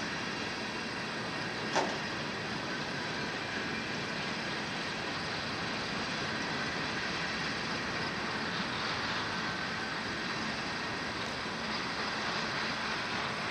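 Coal train's freight cars rolling past in a steady rumble of wheels on rail, with a single sharp clank about two seconds in.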